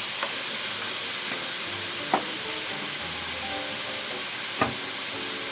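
Pork, garlic and onions sautéing in oil in a pan, a steady sizzling hiss. A few sharp taps of a utensil against the pan come through it, the loudest about two seconds in and again about four and a half seconds in.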